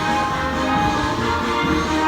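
Music playing, with several held notes sounding together over a steady low beat.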